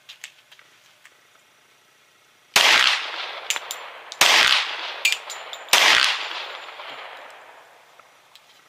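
Glock 20 10mm pistol fired without a suppressor: three sharp shots about a second and a half apart, each followed by a long fading echo.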